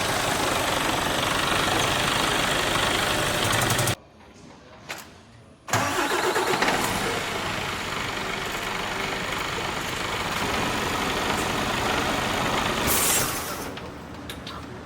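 A Mercedes-Benz Actros truck's diesel engine running steadily. It cuts off suddenly about four seconds in, starts again loudly a couple of seconds later, then drops lower near the end.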